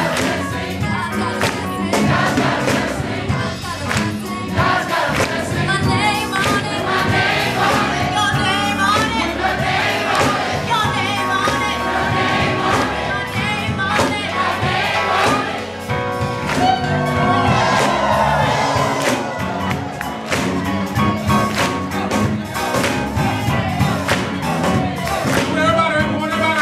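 Gospel choir singing full-voiced, with hand claps on the beat.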